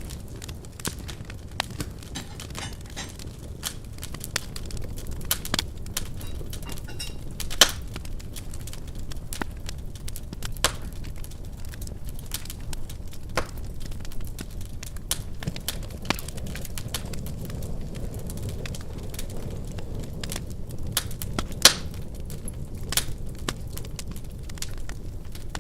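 Wood fire burning in a fireplace: a steady low rumble of flames with irregular crackles and snaps, and two louder pops, one about a third of the way in and one near the end.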